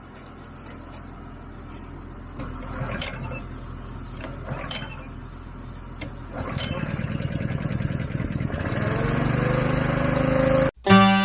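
Honda small gas engine being pull-started: a few sharp recoil pulls, then it catches and runs, speeding up with a rising pitch in its last couple of seconds.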